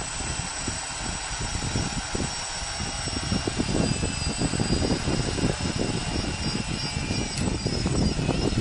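Homemade wooden-frame quadcopter's electric motors and propellers spinning on the ground, a steady high whine that wavers in pitch near the end. Gusty low rumble of wind on the microphone grows stronger about halfway through.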